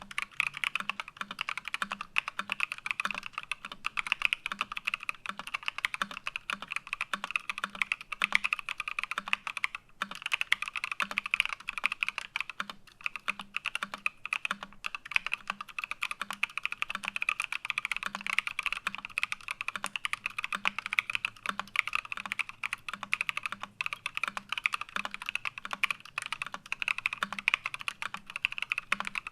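Continuous fast typing on a PC Think 6.5 custom mechanical keyboard with lubed Paco switches, an integrated plate and PBT keycaps: a dense, even stream of keystrokes.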